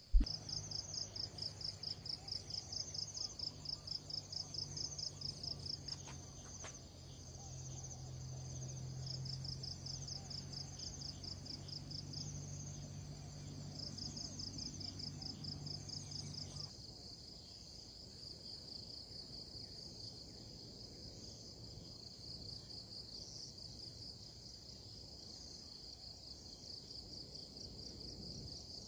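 High-pitched insect chorus, pulsing about four times a second at first and settling into a steadier trill later on. A low steady hum runs under it for the first half and stops suddenly, and there is one sharp thump at the very start.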